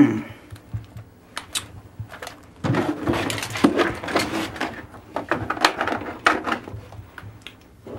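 Things being moved about in an open refrigerator: bottles and jars clink and knock irregularly, and a plastic gallon milk jug is handled and taken out.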